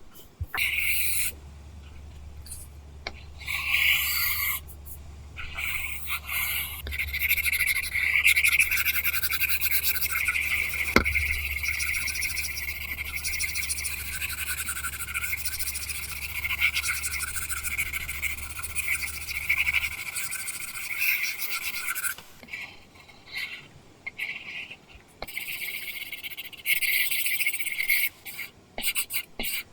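Apple Pencil drawing on an iPad screen covered with a paper-texture film: a dry, scratchy stroke sound that runs almost continuously, then breaks into shorter strokes with gaps near the end.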